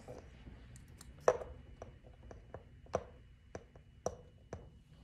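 Hairdressing scissors and a comb working a section of hair on a flat practice board: a string of about eight sharp clicks and snips at uneven intervals, the loudest about a second and a quarter in and another near the three-second mark.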